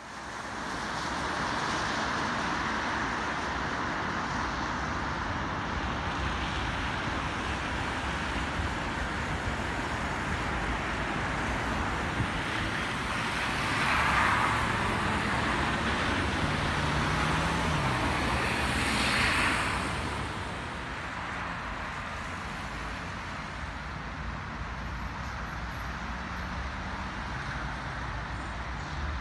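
Steady road traffic noise from a multi-lane road, with two vehicles passing close by about halfway through and again some five seconds later; after that the traffic is a little quieter.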